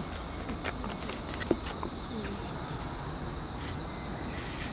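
Steady outdoor insect chirring, with a low rumble under it and a few faint clicks in the first two seconds.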